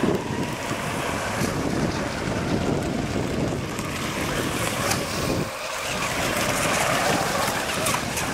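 Radio-controlled catamaran racing boats running at speed on open water, heard under heavy wind buffeting on the microphone; the wind rumble drops away briefly about halfway through.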